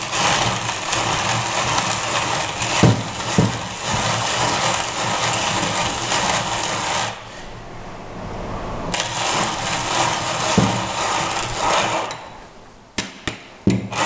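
Dienes hand-cranked conical burr coffee grinder grinding a 7-gram dose of coffee beans: a steady crunching rasp as the crank turns, easing off briefly a little after halfway. The grinding dies away near the end as the dose is finished in under 20 turns, followed by a few sharp clicks.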